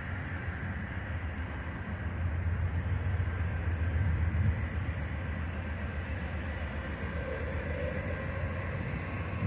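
Norfolk Southern AC44C6M diesel locomotive leading a freight train at a distance: a steady low engine rumble that swells a little about three to four seconds in.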